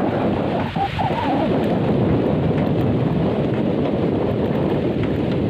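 Wind buffeting the microphone of a camera carried on a moving bicycle, a steady low rumble, with a short wavering call about a second in.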